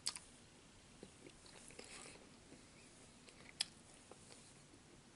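Faint close-up mouth sounds of a man chewing chicken and dumplings: soft wet clicks scattered through, with one sharper click about three and a half seconds in.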